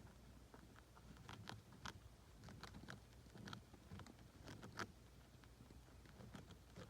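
Faint small sounds from pet rats: soft, short clicks and puffs scattered irregularly over low room tone.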